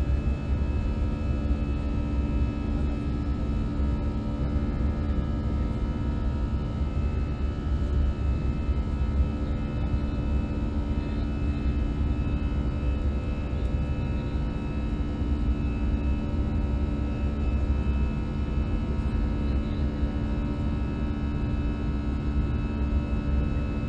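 Steady cabin noise of an Airbus A320-family airliner in flight, heard inside at a window seat over the wing: a deep, even rumble with a constant engine hum on top.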